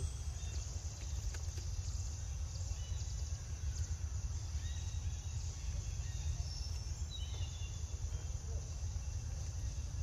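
Outdoor insect chorus: a steady high-pitched insect drone over a constant low rumble, with a few faint short chirps.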